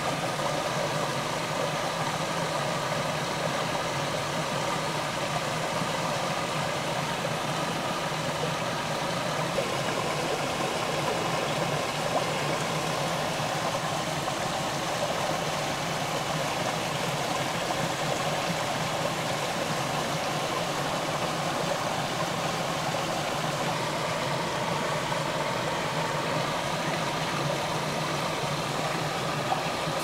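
A stream rushing steadily, with a faint tick now and then.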